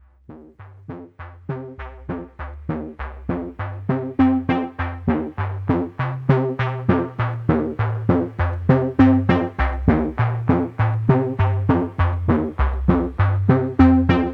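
Background music: a steady run of short, sharply struck notes, about three a second, over a bass line that steps between pitches, fading in over the first few seconds.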